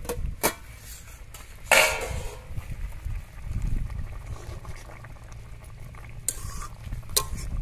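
A plate used as a lid is lifted off a pot of simmering fish curry with a loud clatter about two seconds in, after a first click. The curry then bubbles steadily, with a couple of metal clinks near the end.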